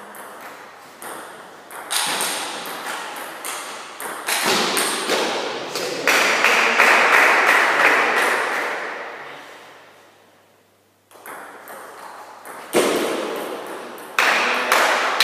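Table tennis ball clicking off paddles and table in a rally, the hits echoing in a large hall. About halfway in, a louder, longer wash of noise swells and fades away over several seconds, then single ball clicks resume.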